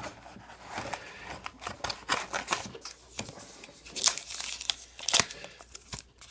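Trading card pack wrapper being torn open and crinkled by hand: irregular crackling and tearing, sharpest about four and five seconds in.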